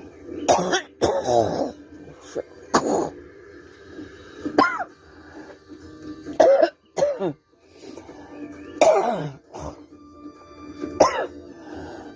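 An elderly woman coughing repeatedly, about nine separate coughs, each trailing off in a short vocal sound that falls in pitch. Music plays faintly in the background.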